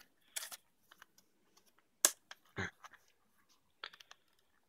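Plastic fishing-lure packaging being handled and opened by hand: scattered crinkles and sharp clicks with quiet gaps, the loudest click about two seconds in.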